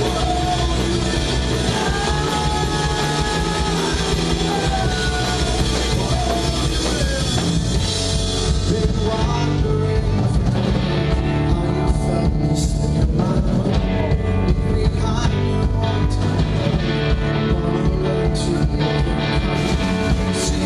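Live rock band playing with guitar, bass and drums, a sung melody over the first several seconds, then a stretch led by the bass and drums.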